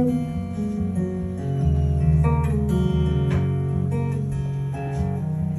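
Acoustic guitar playing an instrumental intro: picked and strummed chords ringing on, with no singing.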